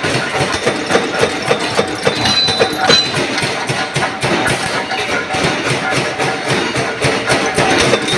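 Large mechanical power press punching washers from black steel plate, with a continuous metallic clatter and repeated knocks about three times a second.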